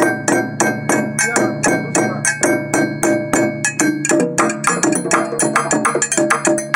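West African dundun bass drums, rope-tuned and beaten with sticks, played together in a quick, steady interlocking rhythm of about four to five strokes a second. The metal bells mounted on the drums are struck along with the heads and ring over the low drum tones. The bell pattern changes about four seconds in.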